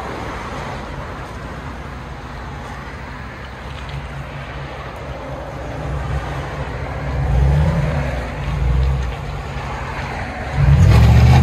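2011 Ford F-150's 5.0 L Coyote V8 through a Flowmaster Outlaw muffler and 3-inch turndown, rumbling at low speed as the truck pulls away, swelling twice. About ten and a half seconds in it gets much louder and rises in pitch under hard acceleration.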